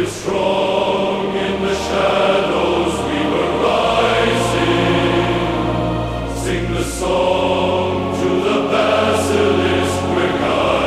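Choral music: a choir singing long held chords over sustained low bass notes that change every few seconds.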